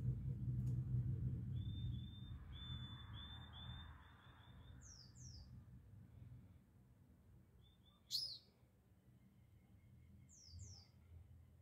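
Small songbirds calling around a hanging trap cage: a quick run of short chirps in the first few seconds, pairs of quick falling notes twice, and one sharp, loud call about eight seconds in. A low rumble fades out over the first few seconds.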